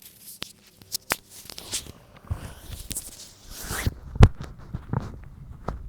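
Rustling and scraping at first, then stomach gurgling from a belly digesting spicy ramen: short low pops, with one loud low gurgle about four seconds in.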